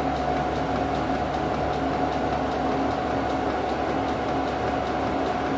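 Small milling machine running, its end mill cutting a curved recess into a metal bar: a steady motor tone over the even noise of the cut.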